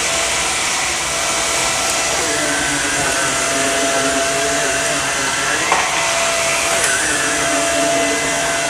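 Samsung Jet VS70 cordless stick vacuum running steadily with its brush roll going through a high pile rug, the motor's pitch shifting a little as it is pushed and pulled over the pile.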